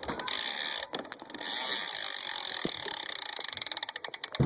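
BMX rear hub freewheeling, its ratchet pawls ticking in a fast, even run as the wheel spins. The hub is a quiet one.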